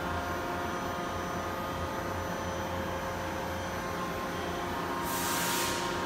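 Steady machine hum from a powered-up Daewoo Puma 1500SY CNC turn-mill lathe idling, with several fixed tones and no cutting. A short hiss comes in about five seconds in.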